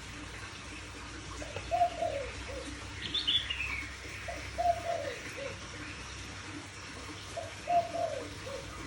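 A dove cooing: three similar phrases of low falling coos, about three seconds apart. Another bird gives a brief high falling chirp about three seconds in.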